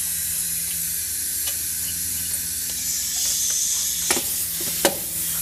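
Steady hiss over a low, even hum, with a few light clicks about four and five seconds in.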